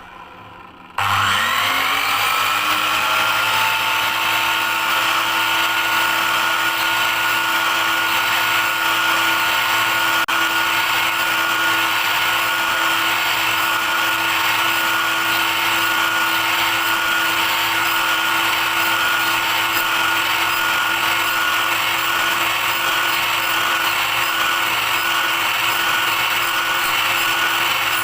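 Electric power tool switched on about a second in, its motor winding up in pitch over a couple of seconds, then running at a steady speed.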